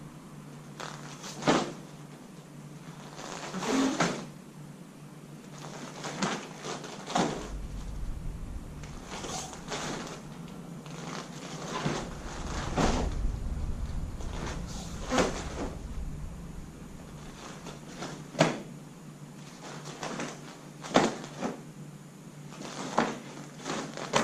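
Taekwondo uniform snapping and bare feet landing on a foam mat with each block, punch and kick of a taekwondo form: about a dozen sharp snaps, one to three seconds apart, with a low rumble underneath for several seconds in the middle.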